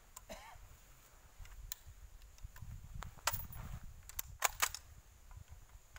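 Several sharp metallic clicks and clacks from an M4-type rifle's action being worked by hand while clearing a stoppage and reloading, the loudest pair about four and a half seconds in, over a low wind rumble.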